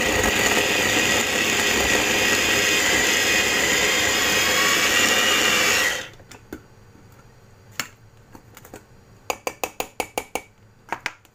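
Electric food chopper's motor running steadily, chopping onion, garlic and ginger for about six seconds, then cutting off abruptly. Scattered light clicks and taps follow.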